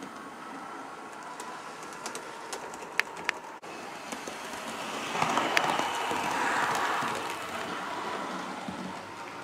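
Bachmann Class 37 model diesel locomotive running on the layout: the steady whir of its electric motor and wheels rolling on the rails, with two sharp clicks about three seconds in. The sound grows louder for a few seconds past the middle, then eases off.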